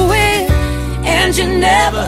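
A song plays: a lead vocal sings a wavering, gliding melody over steady bass notes and a full backing track.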